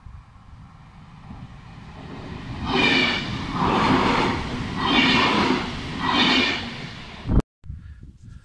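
Trenord electric passenger train passing close by on the rails, a low rumble that swells loudly and fades four times with a metallic ringing edge as it goes by. A sharp click and a brief dropout follow near the end.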